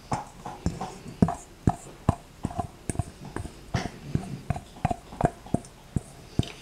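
Quick irregular clicks and taps of a spatula scraping and knocking the last of a beaten egg mixture out of a mixing bowl over a quiche, about three a second.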